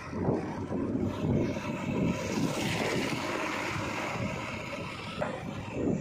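Diesel engine of a JCB 3DX backhoe loader running as the machine drives along a road, heard with a steady, uneven low rumble and wind noise on the microphone.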